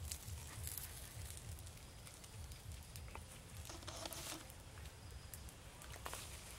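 Rustling of grass and leaves and light footsteps through undergrowth, with scattered small clicks over a constant low rumble.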